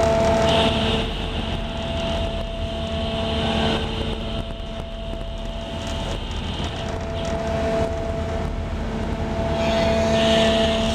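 Steady drone of an anchor-handling vessel's engines and deck machinery, with several steady hum tones over a low rumble. A high hiss starts about half a second in, stops around seven seconds, and comes back near the end.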